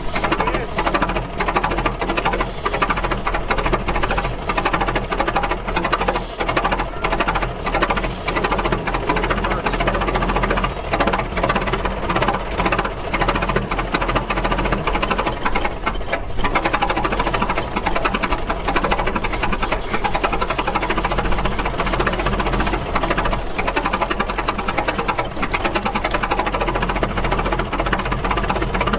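Antique gas engines running with a steady, rapid mechanical clatter.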